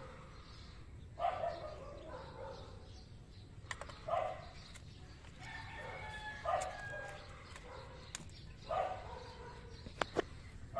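Background calls from a domestic animal, four short pitched calls a few seconds apart, with a few sharp clicks near the end.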